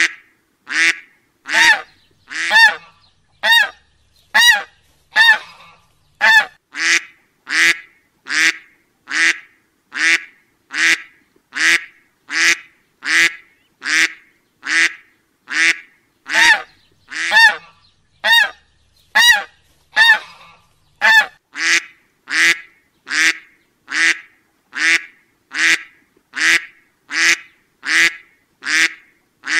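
Duck quacking over and over in a steady rhythm, about one short quack a second.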